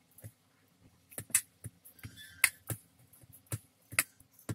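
Hand kneading a soft potato and paneer mixture in a stainless steel plate: irregular sharp clicks and taps, about two a second, with a brief scrape of the mixture against the metal a little past halfway.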